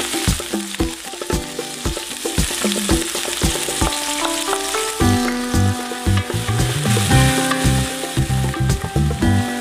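Onions and garlic sizzling in oil in a metal wok, stirred and scraped with a wooden spatula. Background music plays underneath and grows fuller about halfway through.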